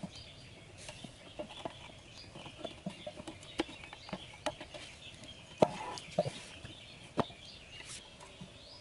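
Irregular light clicks and knocks from hands handling bamboo sticks, string and a metal milk can while setting a trap trigger, the sharpest knock a little past halfway, over a steady faint high hiss.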